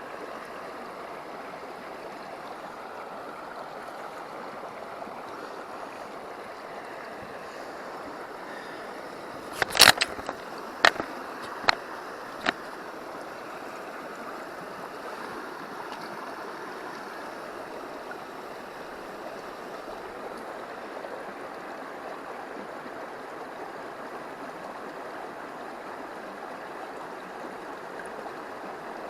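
River water flowing steadily over stones, with a short run of sharp clicks about ten seconds in.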